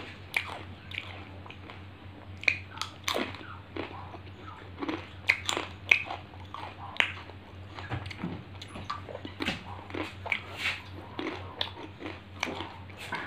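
A person biting and chewing a thin, crisp snack close to the microphone: irregular, sharp crunches every second or so.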